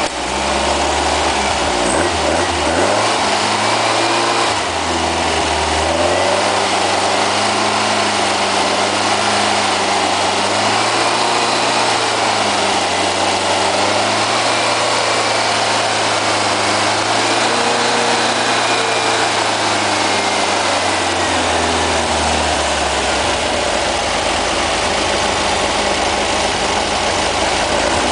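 A newly built 1775 cc air-cooled VW flat-four running on its first firing-up, its engine speed wavering up and down, then changing note about three-quarters of the way through.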